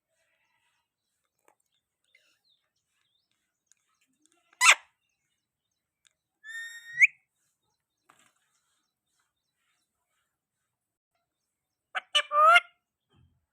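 Parrot calling in three separate bursts: a sharp short squawk, then a whistle that rises in pitch at its end, and near the end a harsher two-part call. The gaps between them are quiet.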